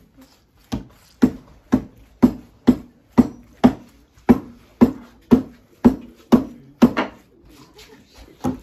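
Wine-barrel taiko under reheading tension being pounded in a steady rhythm of heavy thuds, about two a second, each with a short boom from the drum body. The blows stop a little past seven seconds, and one more comes near the end. The pounding breaks up the collagen of the new cowhide so the rope tension can pull the head down.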